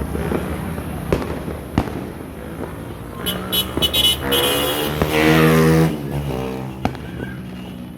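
Scattered firecracker bangs, sharp and separate, over a low background rumble. From about three to six seconds in, a loud pitched sound with many overtones rises and falls, louder than the bangs.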